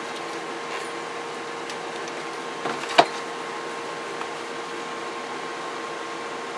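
Steady workshop hum and hiss with two faint steady tones, broken once by a sharp click about three seconds in.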